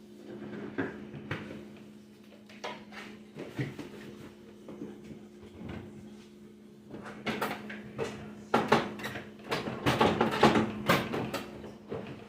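Knocks, clatter and scrubbing of items and shelves being handled while a refrigerator is cleaned out, over a steady low hum. The handling gets busier and louder about seven seconds in.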